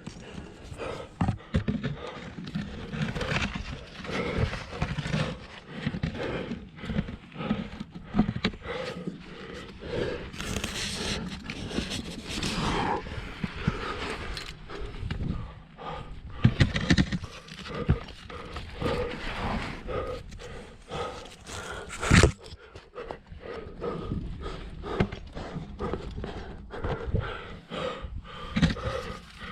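A climber panting with effort while squeezing up a tight rock chimney, with clothing and gear scraping and knocking against the rock. There is one sharp, loud knock about three quarters of the way through.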